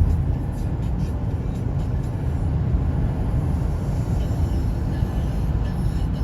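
Car driving: steady low road and engine rumble.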